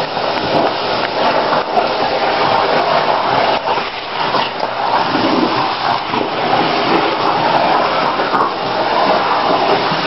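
Vacuum cleaner running steadily, a constant even rush of suction noise.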